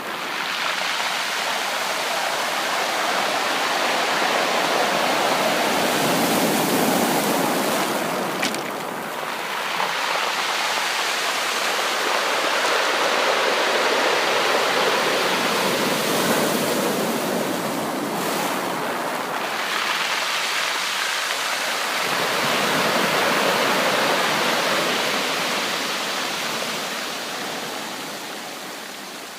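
Sea waves breaking and washing on a shore, a continuous rushing that swells and ebbs every few seconds, dying away toward the end.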